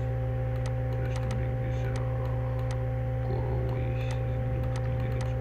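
Steady electrical hum from the recording setup, with light computer-mouse clicks about two or three times a second as a selection is drawn point by point.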